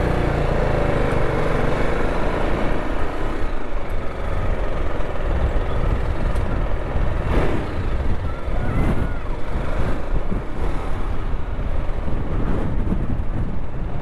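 Motorcycle engine running at low speed as the bike rolls over a rough dirt track, with a steady rumble from the helmet-mounted microphone.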